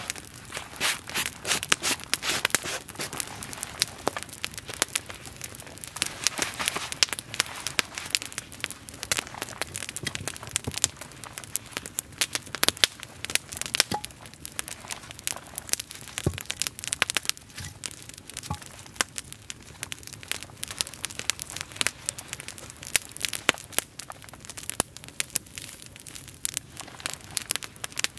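Wood campfire crackling, with many small irregular snaps and pops each second and a soft rush of flame beneath.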